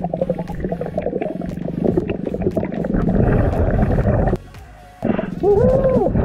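Scuba diver breathing through a full face mask's regulator underwater: rumbling bursts of exhaled bubbles with a brief lull about four and a half seconds in, then a short warbling tone that rises and falls near the end.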